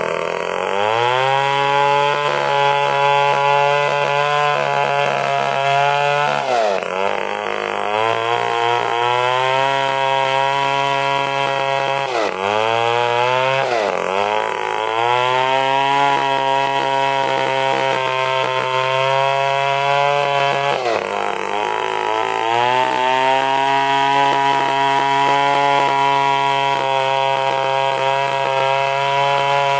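Stihl two-stroke chainsaw running at high revs while sawing angsana wood into planks. The engine note sags and climbs back a few times: once about a quarter of the way in, twice near the middle, and once about two-thirds through.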